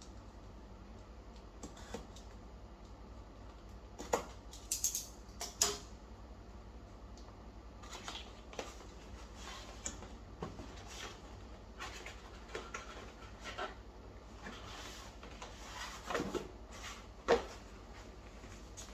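A tablet cover being taken out of its wrapping and handled: scattered clicks, taps and short rustles of packaging, a few louder ones, over a steady low hum.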